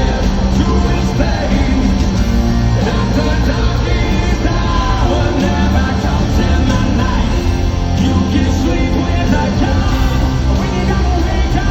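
Live hard rock band playing loud, with distorted guitars, bass and drums and a shouted, sung vocal over them, heard through a crowd recording.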